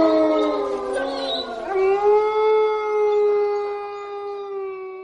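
Long drawn-out howls: the first slides slowly down in pitch, then a second rises and is held at a steady pitch, fading away near the end.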